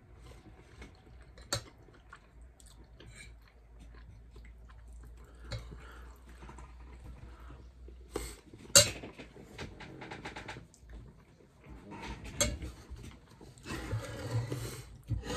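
Cutlery clinking against a plate during a meal, with a few sharp clinks: one about a second and a half in, the loudest about nine seconds in, another around twelve seconds. Quieter eating and handling noises come in between, and a busier rustling, scraping stretch follows near the end.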